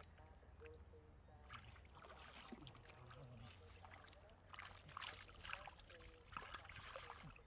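Faint splashing and sloshing of shallow muddy water as hands grope through it for fish, with more splashes in the second half.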